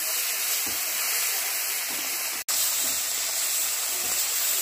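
Small marinated fish sizzling steadily in hot oil in a kadai, a constant frying hiss as they cook. The sound cuts out for an instant about halfway through.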